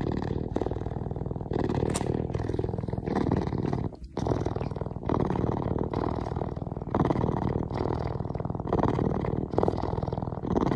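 A puma cub purring loudly in long pulses, about one per breath, with a short break about four seconds in. It is suckling on a finger: contented, nursing-style purring.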